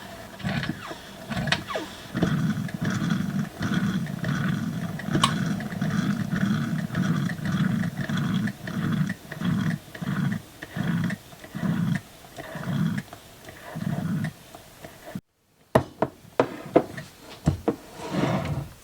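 Percolator coffee pot perking: a regular train of gurgling spurts, about one and a half a second, as the boiling water surges up the tube, spacing out toward the middle. After a brief break come sharp sweeping chirps, the laser-like zaps that make it sound like a sci-fi space battle.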